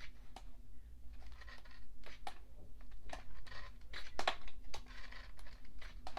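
Pages of a thick photo book being turned one after another, with paper swishes, rustles and soft flaps at irregular intervals.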